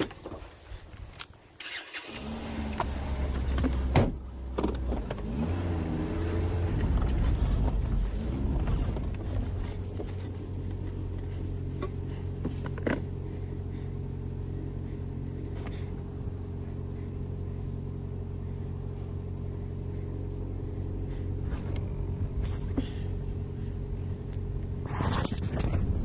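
A car engine starts about two seconds in, revs briefly with its pitch rising and falling, then runs steadily at idle. There is a sharp knock about four seconds in, and near the end the noise swells as the car pulls away.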